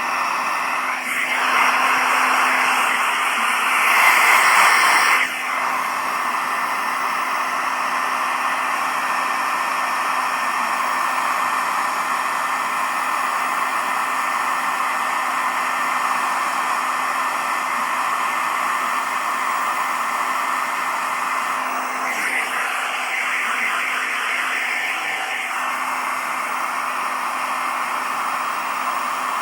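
Hairdryer blowing steadily with a low hum, growing louder and harsher for a few seconds twice.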